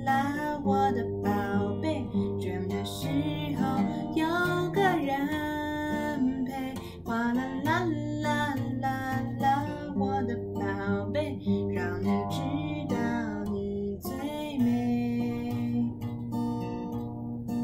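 Acoustic guitar strummed in a gentle lullaby, with a woman's voice singing a wordless melody over it.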